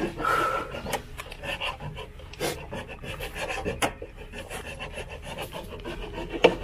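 Rough, irregular scraping and rubbing against a slatted grate, with a few sharp knocks, the loudest one near the end.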